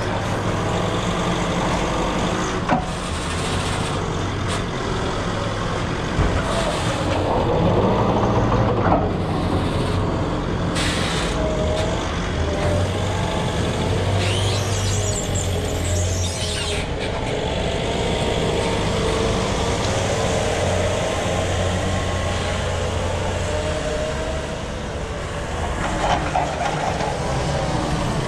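Forklift engine running and revving as it lifts a pallet off the trailer bed and drives away, with a few sharp knocks in the first few seconds. A high whine rises and falls for a couple of seconds about halfway through.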